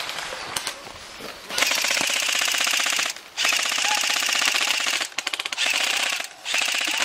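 G&G TopTech M16A3 airsoft electric gun firing full-auto: a rapid, even rattle in four long bursts with short breaks between them. The first burst starts about one and a half seconds in, after quieter rattling.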